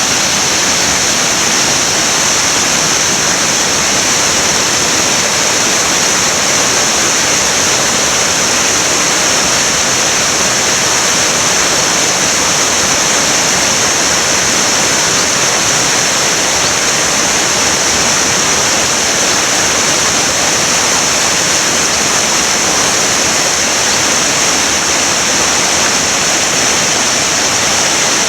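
River in spate rushing and churning over rocks: a loud, steady roar of fast white water that does not let up.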